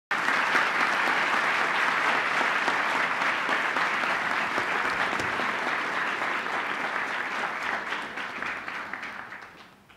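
Audience applauding, dense and steady, then fading out over the last two seconds.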